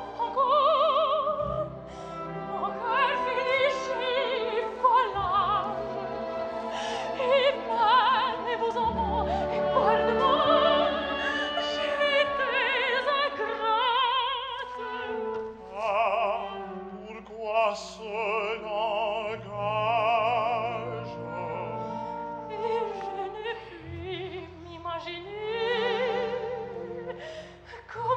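Operatic soprano singing a sung phrase in French with wide vibrato, accompanied by an orchestra in a live staged performance.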